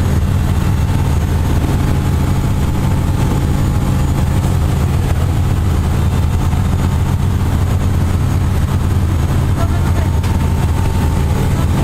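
A steady, loud, low engine drone that holds an even pitch throughout.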